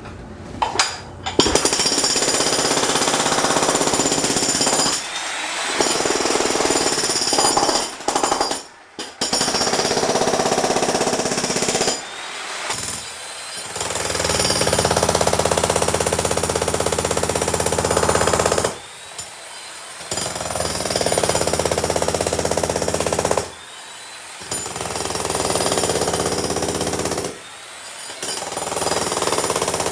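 Makita HM1810 electric demolition hammer (jackhammer) pounding into a concrete basement floor. It runs in several bursts of a few seconds each, stopping briefly between them.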